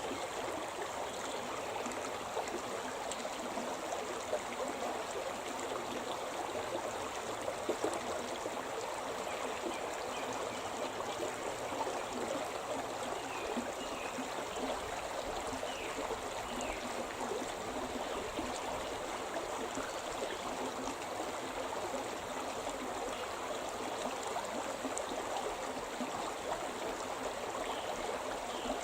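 The Shimna River, a mountain river, flowing steadily: a continuous, even rush of stream water.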